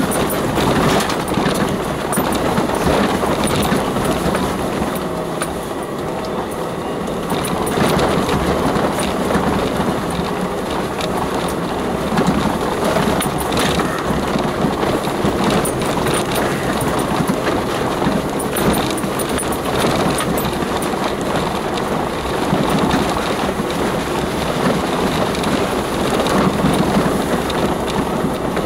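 Four-wheel-drive vehicle driving over a rutted, stony, muddy track, heard from inside the cab: the engine running under a steady din of tyre noise, with repeated knocks and rattles from the body and suspension jolting over the rough ground.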